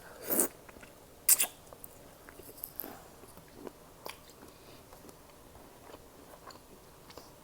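Close-miked eating: a person biting and chewing. There is a wet bite about a third of a second in and a sharp click at about a second and a half, then scattered soft smacks and chews.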